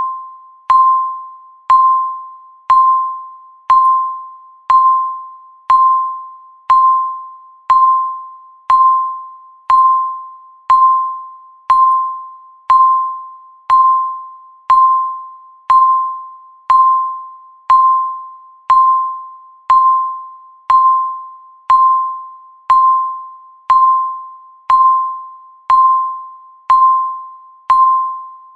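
Countdown timer's electronic beep, one short ringing tone struck every second and fading quickly, all at the same pitch, marking each second as it passes.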